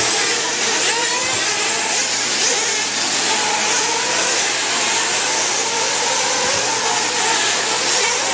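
Several 1/8-scale nitro RC buggy engines running and revving at once, many small two-stroke glow engines buzzing over each other with pitches rising and falling as the cars race.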